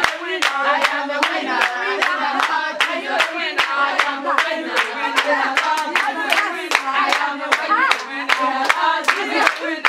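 A group of voices singing a praise song together, with steady hand clapping to the beat at about three claps a second.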